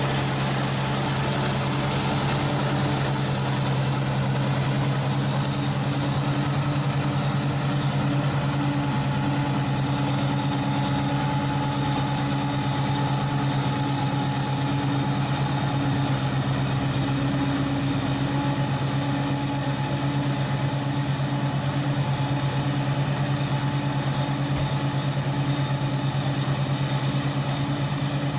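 Engine of an ISEKI 325 rice harvester running at a steady speed, an even, unbroken hum.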